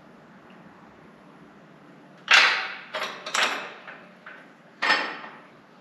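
A run of four loud, sharp clunks with short ringing tails in quick succession, starting about two seconds in, plus a fainter knock between the last two, as the car is let down off the floor jack onto its rear coil springs.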